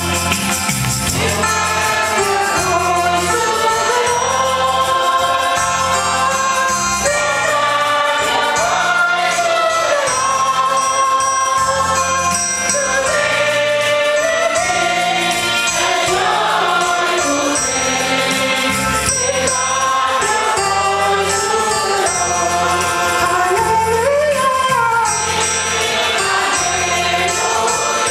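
Congregation singing a hymn together as a choir, with steady low instrumental accompaniment.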